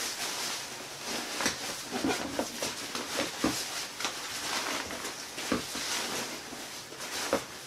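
Rustling and crinkling of a waterproof shell jacket being stuffed by hand into a nylon backpack, with scattered small knocks and scrapes throughout.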